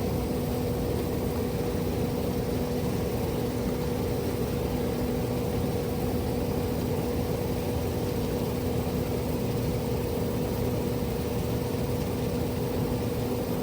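Steady mechanical hum: a constant tone with its overtone over an even rushing noise, unchanging in pitch and level.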